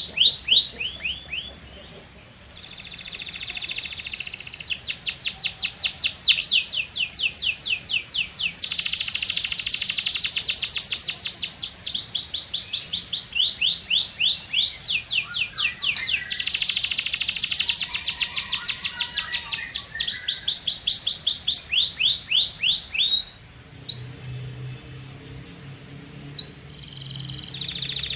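Domestic canary singing: a long song of fast trills, each phrase a rapid run of the same sweeping note repeated many times a second, switching to a new note type every second or two. The song pauses briefly about two seconds in and again around 23 seconds.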